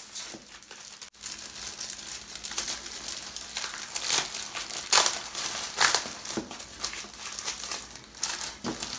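Clear plastic bag crinkling and rustling as it is handled and opened to get the kit's paper insert out, in irregular crackles that are loudest about four to six seconds in.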